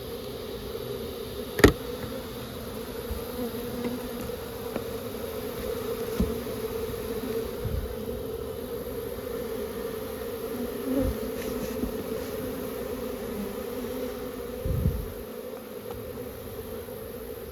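Many honeybees buzzing in a steady hum. A sharp knock sounds about a second and a half in, the loudest thing here, followed later by a few softer thumps.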